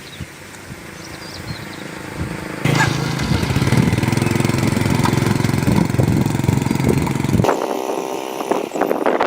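A motor starts suddenly a few seconds in and runs loud and steady with a low hum, then cuts off abruptly about two seconds before the end.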